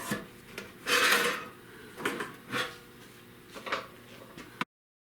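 Sheet metal scraping and rubbing in a few separate strokes, the loudest about a second in, as a patch piece is worked for a rusted wheel-well repair. The sound cuts off abruptly near the end.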